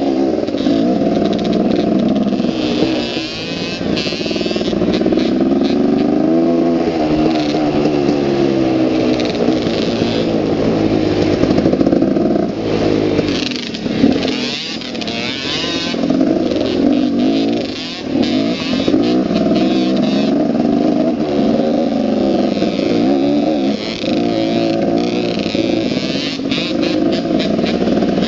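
Dirt bike engine running and revving up and down again and again as it rides, its pitch rising and falling throughout.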